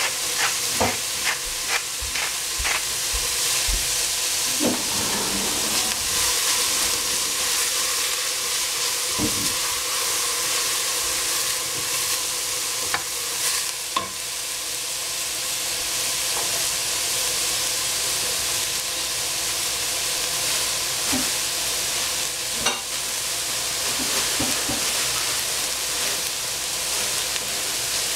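Shredded cabbage and peppers sizzling as they fry in a stainless steel pot, a steady hiss. A wooden spoon knocks and scrapes against the pot in a quick run of strokes in the first few seconds, and a few more times later.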